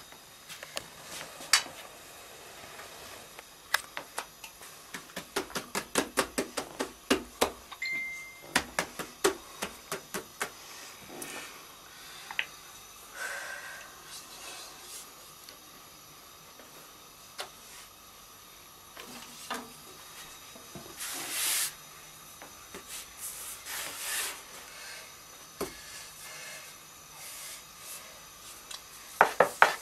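Light wooden taps and clicks of a long thin rolling pin (oklava) working gözleme dough on a floured wooden board, in runs of quick taps about three or four a second, over a faint steady hiss.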